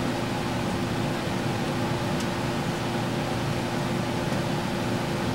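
Steady fan-like mechanical hum with a constant low tone.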